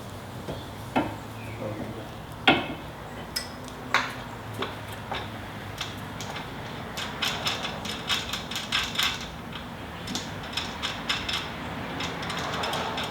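Metal hand tools and suspension hardware clinking and clicking during strut-top work, with a quick run of small clicks a little past halfway.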